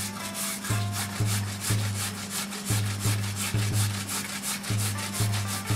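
Nagaimo (Chinese yam) being grated on a handheld metal grater: quick, even rasping strokes, about four a second. A low hum comes and goes through the strokes.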